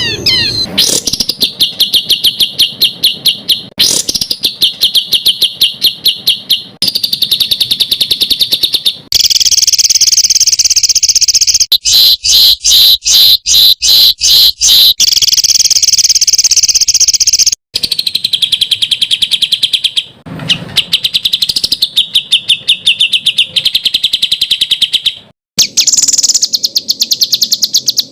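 Songbird song edited for bird training: fast, harsh strings of repeated high notes and rattling trills, the 'tembakan kasar' bursts, in clips that start and stop abruptly, with a slower run of separate loud notes about halfway through.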